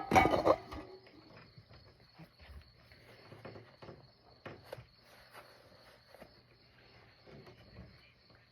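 A steady, evenly pulsing high-pitched insect trill throughout. In the first second there is a short, loud noisy sound, followed by faint scattered clicks and soft thumps.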